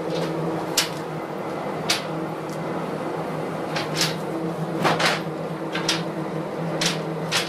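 Caulking gun trigger clicking roughly once a second as a bead of adhesive is squeezed out, over a steady low machine hum.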